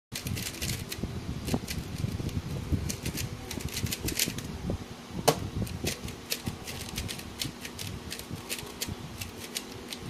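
GuoGuan YueXiao 3x3 speedcube being turned fast during a timed solve: a rapid run of plastic clicks and clacks from the layers snapping round, with the loudest clack just past five seconds in. The clicks thin out in the second half as the solve ends and the timer is stopped.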